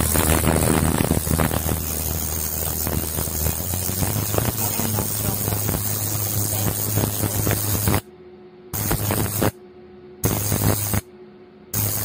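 Ultrasonic cavitation handpiece of a body-slimming machine running with water on its metal face: a steady hiss over a low hum in continuous mode. About eight seconds in it switches to pulsing on and off, roughly every 0.8 s, as a pulsed working mode is selected.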